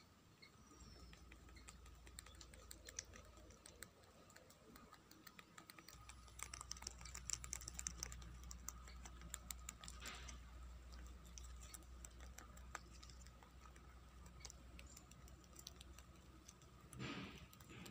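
Domestic rabbits chewing fresh green leaves: faint, rapid crunching clicks, busiest about six to nine seconds in, with a brief louder rustle near the end.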